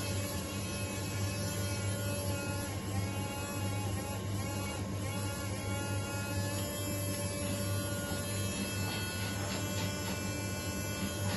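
Small electric motor drive of a Meccano round-the-pole helicopter model running, a steady electric hum and whine while the rotor spins and the arm circles the pole; the whine's pitch wavers slightly.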